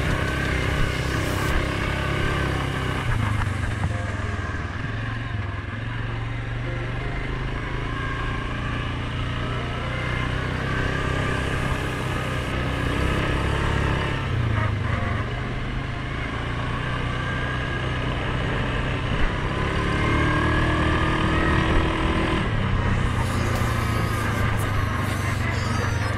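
Suzuki King Quad 750 ATV's single-cylinder four-stroke engine running while riding along a dirt trail, its pitch falling and rising several times as the throttle is eased and opened.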